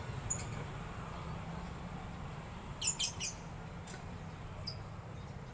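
Short high bird chirps, a few single ones and a quick run of three or four about halfway through, over a steady low background hum.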